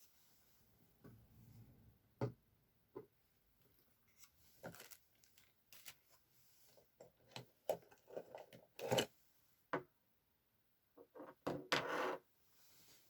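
Light clicks, taps and brief rustles of small objects and paper being handled on a desk, scattered irregularly. The loudest is a short rustling stretch near the end.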